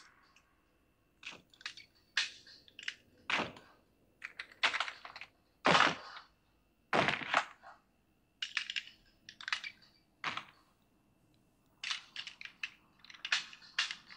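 A run of irregular sharp clicks and knocks, some single and some in quick clusters, with a short lull shortly before the end.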